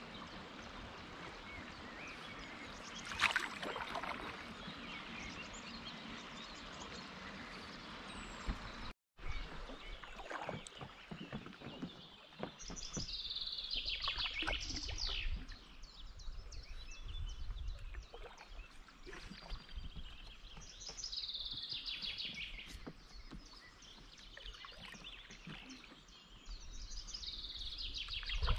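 A songbird singing a short, falling, trilled phrase three times, several seconds apart, over the faint water sounds of a paddled kayak. Before a cut about nine seconds in there is only a steady hiss with one louder noise.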